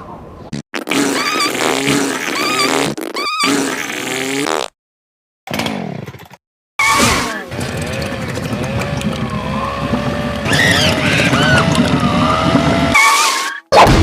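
A run of cartoon sound effects cut back to back, with short gaps of silence between them: squeaky, wobbling glides in pitch, then a longer stretch of a low motor-like rumble under warbling tones.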